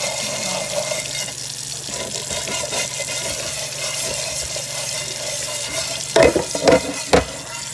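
Tap water running steadily from a kitchen faucet with a faucet-mounted filter, splashing into a stainless steel sink. A few sharp knocks near the end, the loudest sounds.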